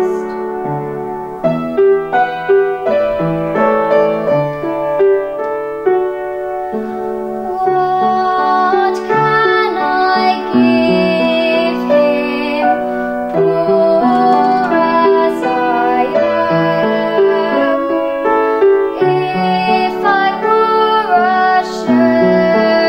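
A girl singing solo with piano accompaniment, her voice held on long notes with a light vibrato.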